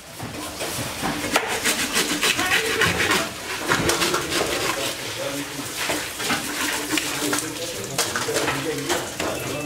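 Knife cutting into the head of a large tuna: a run of short clicks and scrapes as the blade works through the flesh and bone, over a background of voices.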